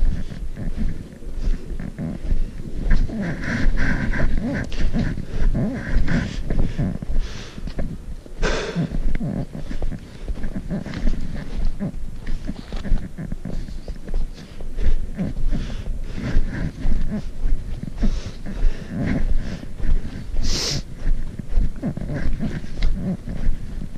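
Footsteps crunching in packed snow at a steady walking pace, about two steps a second, with heavy breathing close to the microphone. Two sharper hisses stand out, about a third of the way in and near the end.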